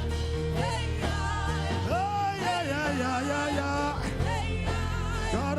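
Live gospel worship music: a solo voice singing in long, wavering phrases over a steady accompaniment of held chords and bass.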